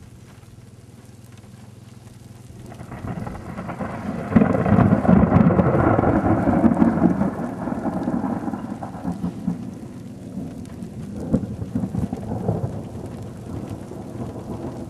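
Thunder from a close lightning strike: a rumble that builds about two and a half seconds in, is loudest for a few seconds, then rolls on with smaller surges as it fades.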